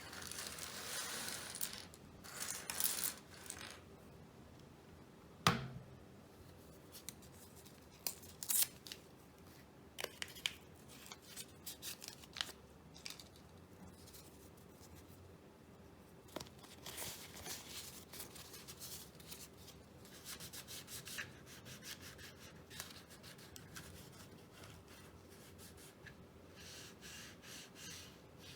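Cleaning a Keychron K1 keyboard by hand: scratching and rubbing against the keyboard, with scattered sharp clicks and taps, the loudest about five and a half seconds in.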